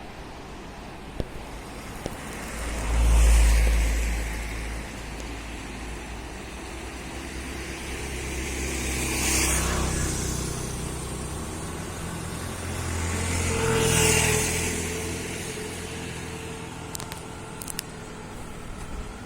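Road traffic: three motor vehicles pass one after another, the first and loudest about three seconds in, the others about nine and fourteen seconds in, each swelling and fading with engine hum and road noise.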